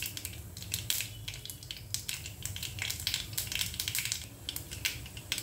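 Mustard seeds crackling in hot oil in a frying pan: irregular sharp pops, several a second, as the seeds start to splutter.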